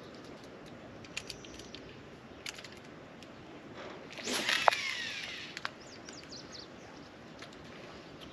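A fishing rod cast: the rod swishes and line whizzes off the reel with a falling whine, about four seconds in. A few light clicks follow.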